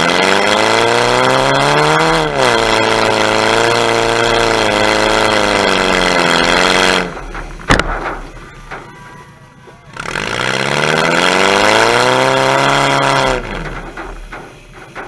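Demolition derby car's engine revving hard under acceleration, its pitch climbing over about two seconds and holding, then cutting off about seven seconds in. A single sharp knock follows, and after a couple of quieter seconds the engine revs up again and falls away near the end.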